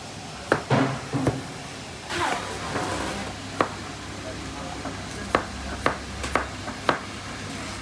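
Knife chopping on a cutting board in a working kitchen: irregular sharp knocks that settle into about two a second in the second half, with voices in the background.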